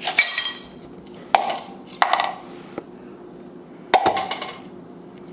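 Dishes and cutlery clinking and knocking, four separate hits: a bright ringing clink at the start, then duller knocks about a second, two seconds and four seconds in.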